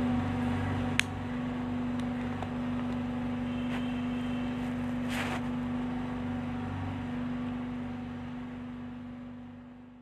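Vehicle engine running at a steady pace, a constant hum with a low even throb, fading out near the end. A sharp click about a second in.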